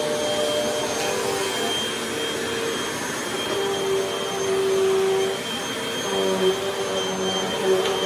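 Vacuum cleaner running steadily as it is pushed over a rug: a rush of air with a motor whine that shifts a little in pitch, and a lower hum joining about six seconds in. Two small knocks near the end.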